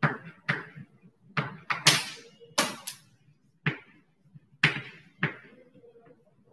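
Chalk writing on a blackboard: a run of about nine sharp taps and short scrapes at an uneven pace.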